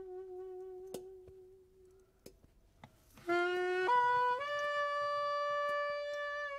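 A solo wind instrument with a saxophone-like tone plays a slow jazz melody. A held note with slight wavering fades out over the first two seconds. After a quiet gap with a few faint ticks, a rising phrase of three notes ends in a long held high note.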